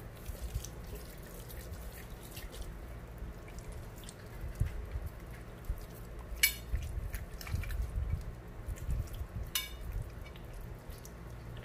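Hands rubbing thick yogurt-spice marinade into a whole raw chicken: soft, irregular wet squelching and slapping, with two sharper wet smacks in the second half.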